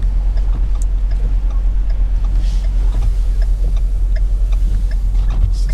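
Car driving at a steady pace, a constant low rumble of engine and road noise, with light regular ticking above it.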